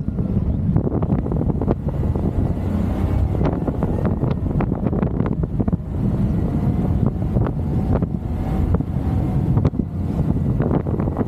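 Wind buffeting the microphone over a loud, steady low rumble, with many short clicks and knocks scattered through it.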